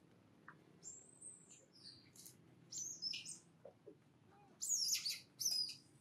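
Short, high-pitched chirping calls from an animal, a scattered run of them in the first half and two louder ones near the end.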